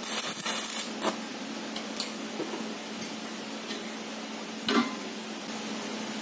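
Stick welder striking a brief tack weld on the corner of a sheet-steel tank: a short crackling arc at the start, then a few sharp ticks about a second apart. A knock just before the five-second mark comes as the tank is shifted on the floor. A steady low hum sits under it all.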